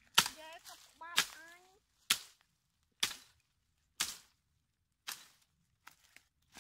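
A hand blade chopping into a woody branch: six sharp strikes about a second apart, the first two the loudest, then two fainter hits near the end.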